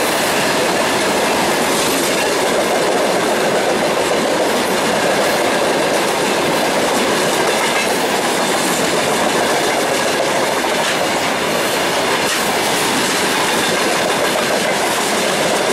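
Freight train wagons, mostly covered hoppers, rolling steadily past close by: a loud, even rumble of steel wheels on rail with clicking over the rail joints.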